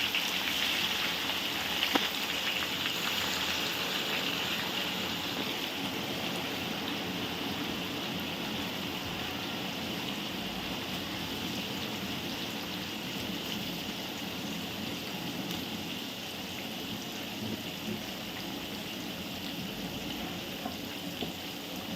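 Sliced onions frying in a large pan of hot oil: a steady sizzle, loudest at the start and slowly dying down as the onions cook.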